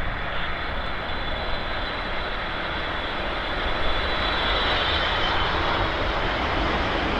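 Boeing 777 freighter's turbofan engines on final approach: a steady jet rumble and hiss with a faint high whine, growing slightly louder as it nears.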